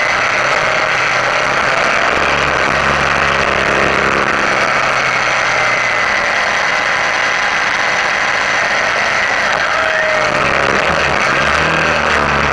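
Wind rushing over a motorcycle-mounted camera while a Suzuki V-Strom 650's V-twin engine runs under way, its low drone shifting in pitch as the rider works the throttle through the bends.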